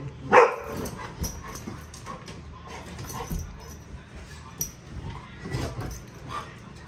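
Golden retriever whimpering and giving short yips as it fixes on a laser pointer's dot, with one loud, high cry about a third of a second in.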